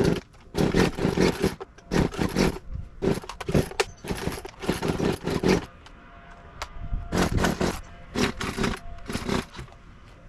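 Chainsaw being pull-started over and over: a run of short, loud cranking bursts about once a second, with a short pause in the middle, the engine not catching.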